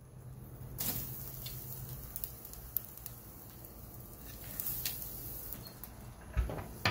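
Skirt steak laid straight onto hot lump charcoal, the coals crackling and hissing under it with scattered sharp pops. Near the end the Big Green Egg's ceramic dome lid comes down with a low thump.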